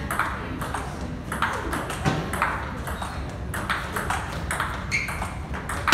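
Table tennis rally: the ball clicking back and forth off rubber paddles and the Donic table in quick, irregular knocks, with a louder hit near the end.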